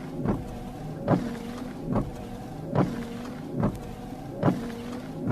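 Car windshield wipers running: the wiper motor hums steadily, with a short thump each time the blades reverse at the end of a sweep, about once every 0.85 seconds.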